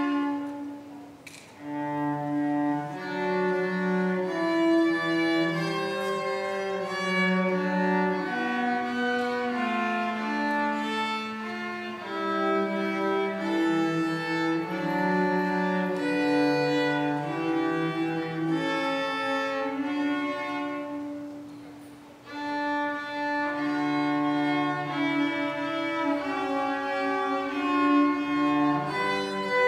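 A violin and a cello playing a duet, bowed notes sounding together, with two brief lulls, about a second in and about twenty-two seconds in.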